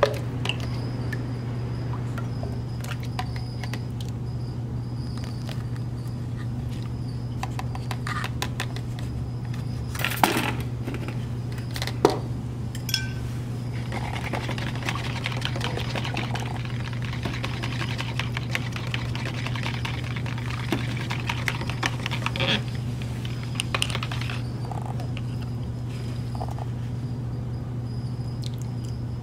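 Metal ladle and wire whisk clinking against glass and plastic mixing containers, with a few sharp clinks, then about ten seconds of rapid whisking of soap batter in a plastic cup, heard as fast scratchy ticks. A steady low hum runs underneath.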